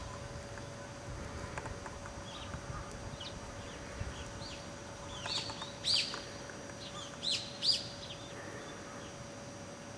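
Bird calls: a few short, downward-sweeping chirps, loudest in two clusters about five to six seconds in and again after seven seconds, over a faint steady hum.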